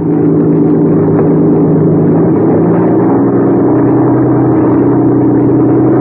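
Radio-drama sound effect of a light aircraft's engine opened to full throttle for takeoff, a loud, steady drone that shifts a little in pitch about halfway through.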